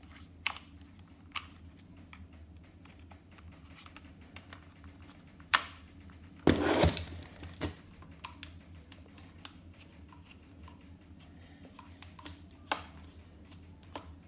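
Small irregular clicks and ticks of a Phillips screwdriver turning in a screw and knocking on the plastic handle of a Dyson V6 cordless vacuum, as the screw holding the battery pack is undone. About six and a half seconds in there is a louder clatter of handling lasting about half a second.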